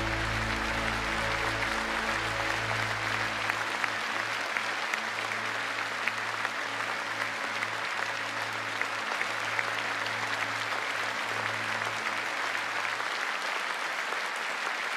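Audience applauding steadily, over the last held chord of the music fading out in the first few seconds.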